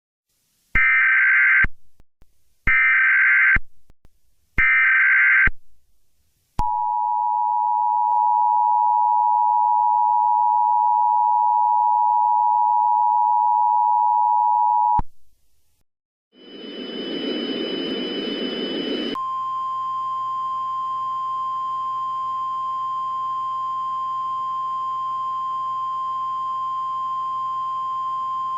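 Emergency Alert System signals: three short screeching SAME header data bursts, then the EAS two-tone attention signal held steady for about eight seconds, cutting off suddenly. After a short gap comes a burst of static, then a steady single high tone over hiss.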